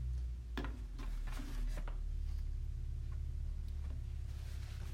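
Steady low hum of a small room, with a few soft rustling sounds in the first two seconds and two light clicks about four seconds in.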